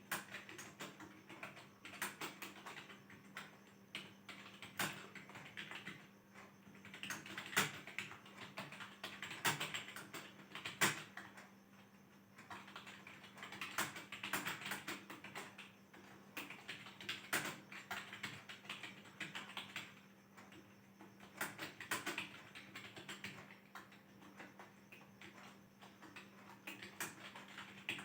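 Computer keyboard typing: runs of quick keystrokes lasting a few seconds each, broken by short pauses.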